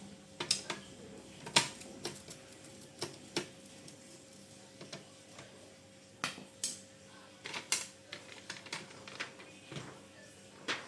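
Irregular clicks and knocks of plastic and metal copier parts being handled and unlatched while the intermediate transfer belt unit of a Fuji Xerox ApeosPort VII C5573 is taken apart, over a faint steady hum.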